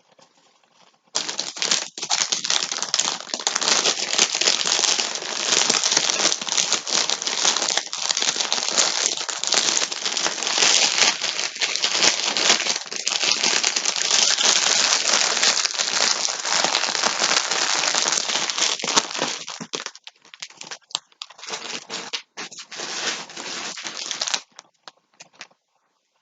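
Packaging being handled and crinkled: a dense, loud crackling rustle that starts about a second in, then thins to intermittent crinkles and stops a couple of seconds before the end.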